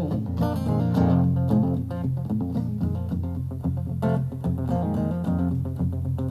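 Instrumental music between sung lines: plucked and strummed guitar over a steady bass line, with no singing.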